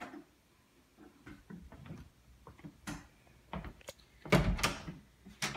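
A door being handled: a scatter of light clicks and knocks, then a louder knock and rattle with a low thud about four seconds in.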